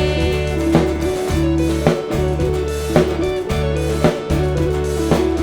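Instrumental break in a contemporary worship song, with no singing: a drum kit keeps a steady beat, with about one strong hit a second, over held low bass notes and sustained chords.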